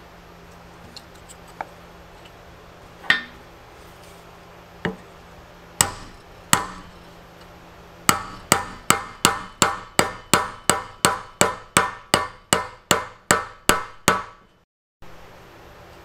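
Ball-peen hammer striking a wood block to drive a wooden wedge into the eye of a lath hammer head, setting it on its new handle. A few separate blows come first, then a quick, even run of about sixteen strikes, roughly three a second, which cuts off suddenly near the end.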